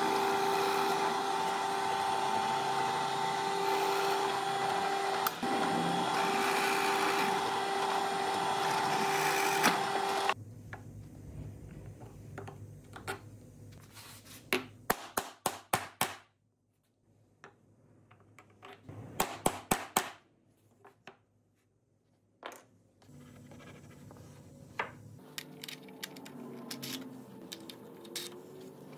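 A power tool running steadily with a constant whine while cutting wood, cutting off suddenly about ten seconds in. After that come several quick runs of sharp clicks and taps, a short stretch of near silence, and faint rubbing noise near the end.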